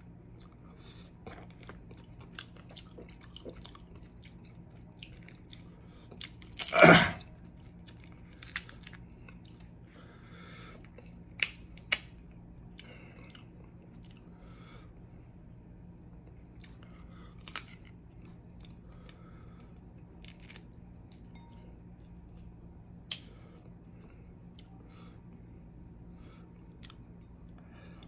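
Close-up eating sounds of a snow crab seafood boil: chewing and biting, with scattered sharp clicks and cracks. One much louder noise lasting about half a second comes about seven seconds in.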